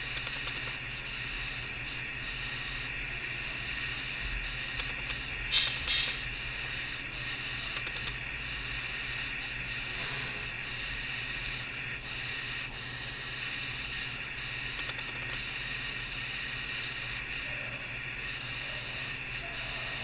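Steady hiss of background noise with a low hum underneath, no distinct sound from the crochet work; one short scratchy burst about five and a half seconds in.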